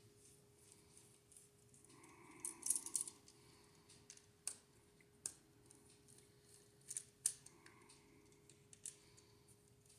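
Faint, scattered clicks and scrapes of a screwdriver working the terminal screws of a wall receptacle, with a cluster of clicks about two and a half seconds in and single clicks later.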